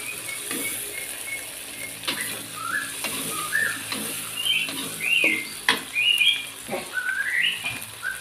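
Spice paste and dried shrimp sizzling in an aluminium wok, with a metal spatula stirring, scraping and knocking against the pan. A bird chirps over it again and again in short rising and falling calls.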